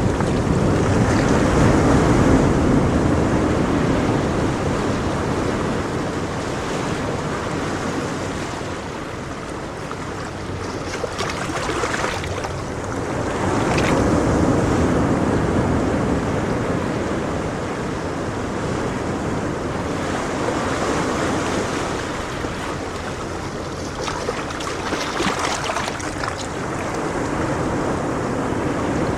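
Sea waves surging and breaking in slow swells, loudest about two seconds in and again around the middle, with the wash ebbing between.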